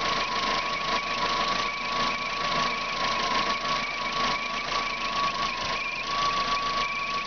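Lifan Solano engine running with a steady high-pitched whistle, plus a fainter warbling tone above it that comes and goes. The owner traces the whistle to the water pump.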